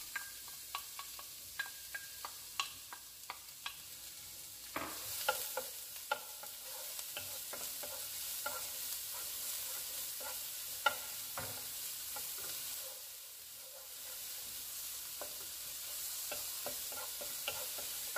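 Chopped onion sizzling in hot oil in a pot, with a wooden spoon tapping and scraping against the pot as it is stirred, in many short clicks over a steady sizzle.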